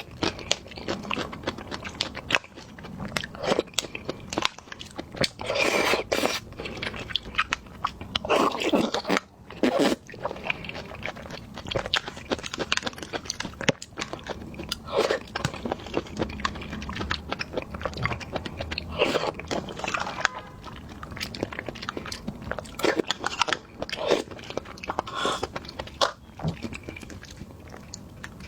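Close-miked biting and chewing of jelly snacks, with crunches coming irregularly and densely.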